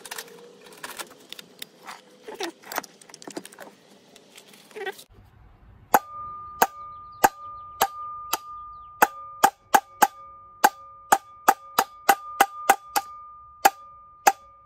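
Hammer tapping on the steel shaft of a Jeep Cherokee XJ blower motor to drive it out of the plastic fan's hub. About twenty sharp metallic blows come at roughly two a second, each leaving a clear ringing tone. Before them, a few seconds of quick clattering and clicking of tools being handled.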